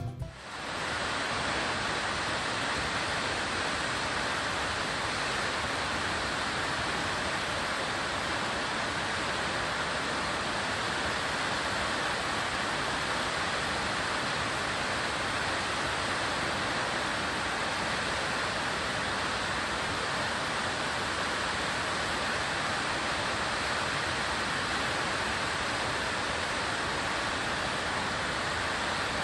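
Waterfall: falling water as an even, unbroken rushing noise with no rhythm or pitch, starting abruptly and fading out near the end.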